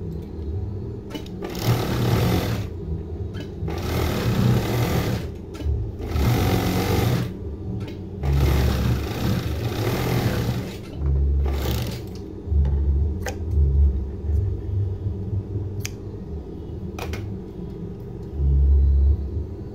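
Industrial overdeck (coverstitch) sewing machine stitching in runs of one to two and a half seconds, stopping and starting about five times. After about twelve seconds it falls idle, leaving a low hum with a few sharp clicks.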